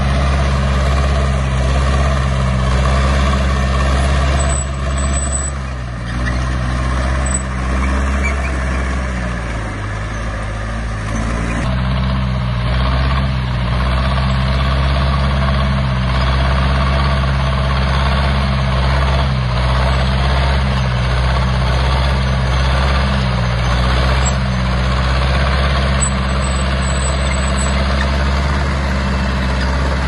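Heavy diesel engine of a bulldozer running steadily, a low continuous engine note that dips briefly about six and ten seconds in.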